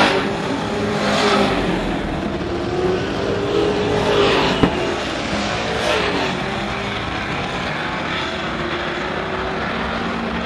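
Dirt-track race trucks running at racing speed as the pack passes, the sound swelling and fading with each pass-by, with a single sharp crack about halfway through.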